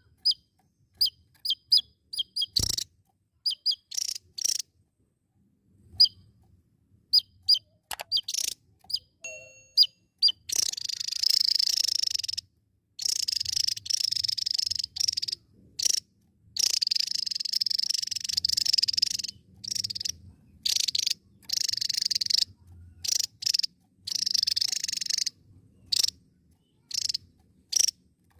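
Javan tesia singing: sharp, high single chirps at first, then from about ten seconds in long, rapid, high-pitched twittering phrases of a few seconds each, separated by short pauses.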